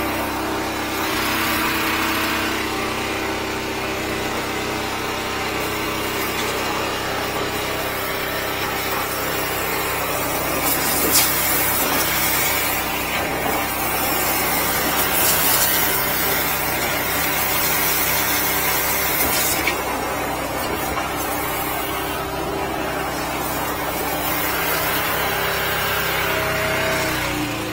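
A 13-horsepower high-pressure sewer jetter running steadily under load while its rotating grenade nozzle blasts water through a clogged drain line, the engine's drone mixed with the hiss and spatter of the jet. A couple of brief sharp knocks come about a third and two-thirds of the way in.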